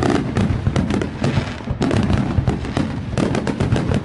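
Fireworks going off in a dense barrage: rapid, overlapping cracks and bangs with no break between them.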